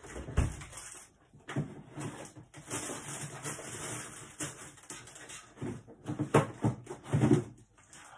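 Kitchen handling noise close to the microphone: irregular knocks and rustling as things are moved and put away, with a few louder thumps, the loudest near the end.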